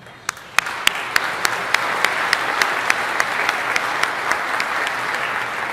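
Audience applauding, with one person's claps close to the microphone standing out as sharp, even claps about three a second.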